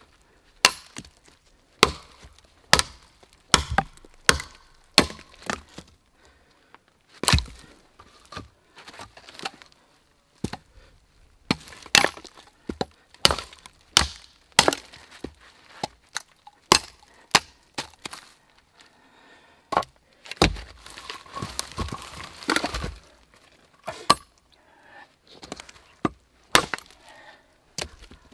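Machete chopping into a dead tree trunk: sharp woody strikes, unevenly spaced, about one a second. A little past two-thirds of the way in comes a few seconds of denser crackling noise between the strikes.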